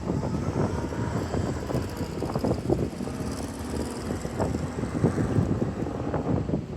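Wind buffeting the microphone in irregular gusts of low rumble, with a faint high hiss that swells and fades in the middle.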